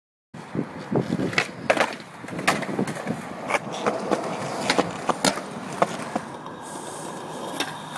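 Skateboard rolling on concrete, with a run of sharp clacks over the first five seconds or so, then a steadier wheel roll.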